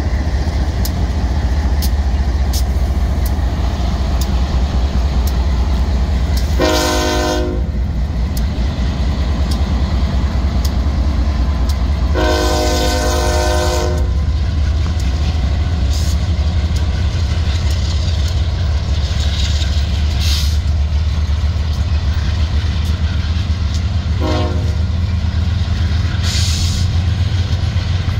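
Diesel locomotive rumbling steadily past while its air horn sounds three times: a blast of about a second, a longer blast of about two seconds, then a short one near the end. This is the start of the long-long-short-long grade-crossing signal. Light rhythmic clicks of wheels over rail joints can be heard in the first few seconds.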